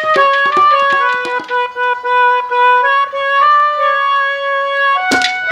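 Live ragni band playing an instrumental passage: a sustained, wavering melody line with drum strokes in the first second or so and again near the end.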